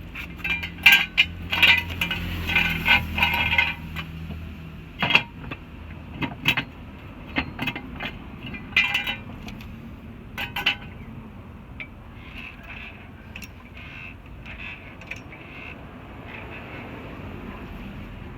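Irregular metallic clanks and clinks from a car jack being set under a car and worked, thickest in the first few seconds and thinning out after about ten seconds. A low hum runs under the first few seconds.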